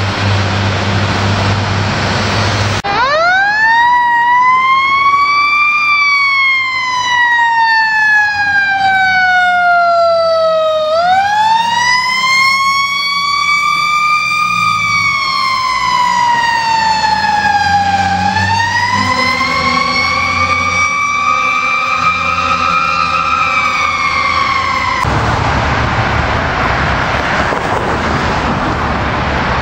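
A fire engine's siren wailing, rising and falling slowly in long sweeps of several seconds each, over the noise of the engine and passing traffic. The siren starts sharply about three seconds in and breaks off suddenly near the end, leaving only engine and traffic noise.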